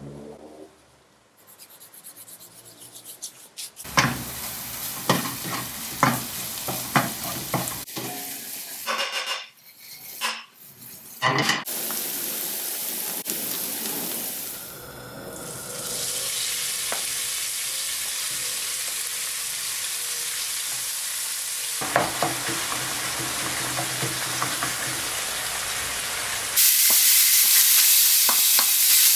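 Diced onion, garlic and red pepper frying in a non-stick pan, with a spoon knocking and scraping against the pan as it is stirred, then a steady sizzle. The sizzle grows louder shortly before the end as lamb mince frying with chorizo comes in.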